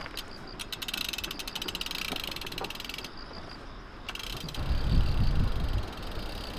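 Road bike's rear freewheel hub ticking rapidly as the wheel turns without pedalling, for about two and a half seconds before it stops. A louder low rumble follows near the end.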